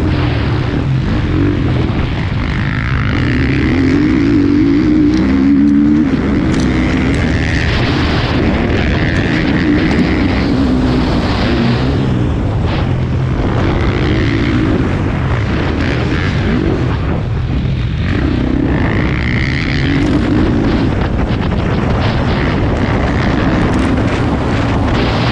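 Motocross bike engine at race pace, heard from a camera mounted on the bike or rider, the revs climbing and dropping again and again as the rider accelerates and backs off around the track.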